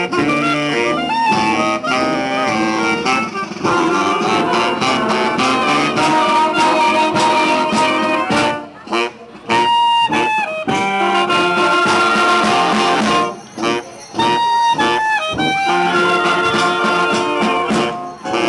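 Brass band playing a tune, brass and saxophones sounding held notes in phrases; twice the music drops away briefly, about halfway through and again a few seconds later.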